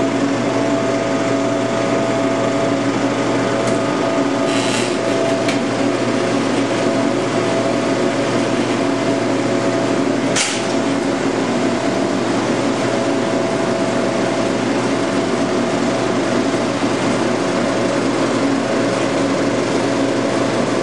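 35mm film projector running: a steady mechanical whir with a layered hum, broken by a short sharp click about four seconds in and another about ten seconds in.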